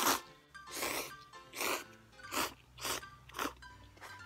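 A person slurping cup ramen noodles in about six quick sucks, the first the loudest, over quiet background music.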